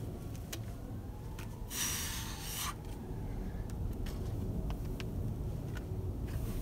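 Wind rumbling low on the microphone, with a few faint taps and a hissing scuff lasting about a second, about two seconds in: a climber's hands and rock shoes working on the boulder in a low start.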